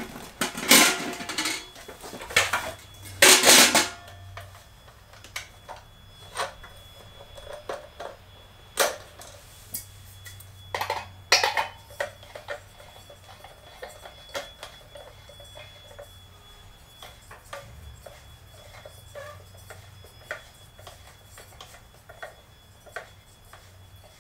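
Portable propane grill parts being taken out of a carry bag. A few loud rustling, clattering bursts come in the first four seconds, then scattered light knocks and clinks of metal parts being handled.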